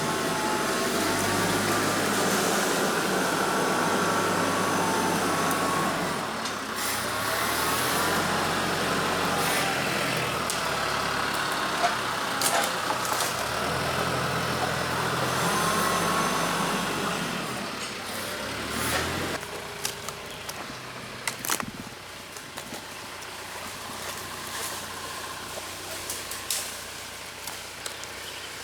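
TYM tractor's diesel engine running steadily, its pitch rising and falling several times. About two-thirds of the way through it drops quieter, with a few sharp knocks.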